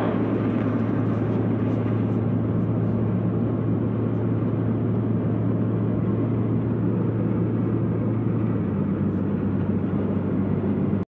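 Steady engine drone and road noise of a vehicle driving at speed. The engine's hum drops slightly in pitch about eight and a half seconds in, and the sound cuts off abruptly just before the end.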